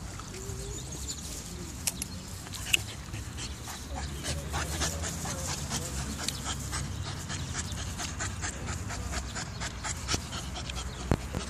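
Staffordshire bull terrier puppy panting, quick and even, becoming clear about four seconds in.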